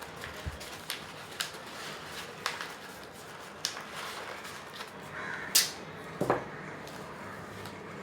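Paper and masking tape being handled at close range: scattered crinkles and taps, a sharp loud rip about five and a half seconds in, then a short harsher sound just after.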